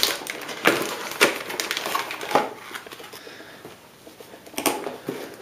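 Anti-static plastic bag crinkling and cardboard packaging rustling as a motherboard is handled and lifted out of its box. There are several sharp rustles in the first two and a half seconds and another near the end, with quieter handling in between.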